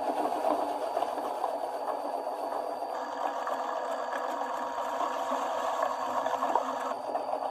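Meat grinder motor running steadily with a whir, grinding ice cream through the auger and plate.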